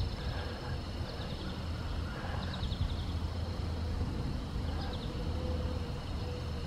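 Outdoor ambience: a steady low rumble, with a couple of short, faint bird chirps.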